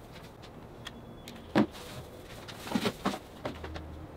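Faint handling and rustling of sisal rope being wound around a wooden post. There is one sharp knock about a second and a half in, and a few softer knocks a little later.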